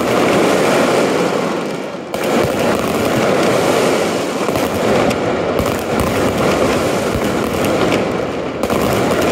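Aerial fireworks bursting and crackling in a dense, continuous barrage, with a fresh volley starting suddenly about two seconds in.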